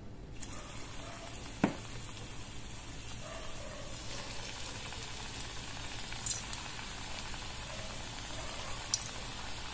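Pieces of crumbled besan (gram flour) dough deep-frying in hot oil in a kadai, a steady sizzle as they are lightly fried. A single sharp tap sounds about a second and a half in, and a couple of faint ticks come later.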